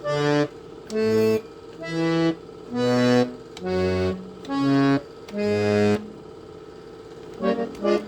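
Farfisa Sonette chord organ playing seven short chords on its chord buttons, about a second apart, with a sound very much like an accordion; a quick run of shorter notes starts near the end. A steady hum from the organ's fan runs under the chords.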